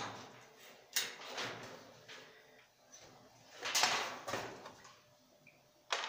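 Hollow plastic knocks and scrapes as a top-loading washing machine's plastic tub is shifted and pulled about inside its cabinet, with a longer scraping rattle about four seconds in and a sharp knock at the end.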